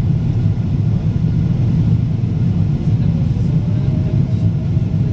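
Steady low rumble of a Boeing 777-200ER airliner heard from inside the passenger cabin, with a faint steady tone joining about three and a half seconds in.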